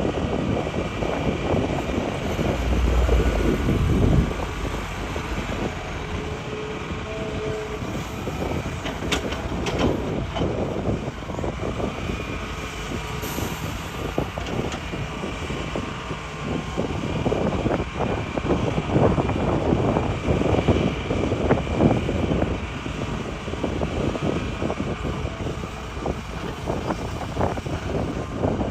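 Hitachi excavator digging rock: its diesel engine runs under load while the bucket scrapes and rocks knock and clatter at irregular moments. A heavy low rumble comes about three seconds in.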